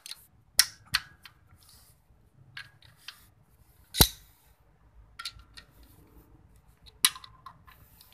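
Sharp metallic clinks and clicks of a steel tubular socket wrench being fitted onto and turned on the clutch pressure-plate bolts of a tractor engine's flywheel. The loudest clink comes about four seconds in and another near seven seconds.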